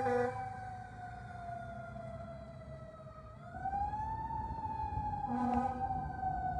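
Fire engine's Federal Q2B mechanical siren winding slowly down in pitch, then spun back up about halfway through and coasting down again. Air horns sound a short blast near the end, and the tail of another blast is heard at the very start.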